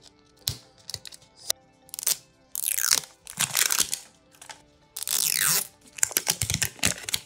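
Thin plastic wrap being torn and peeled off a Mini Brands capsule ball: a few separate bursts of crinkling and tearing, then a quick run of crackles near the end, over faint background music.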